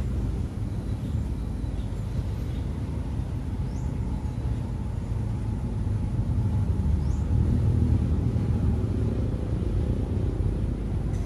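Steady low rumble of distant road traffic, with a few faint, short, high chirps over it.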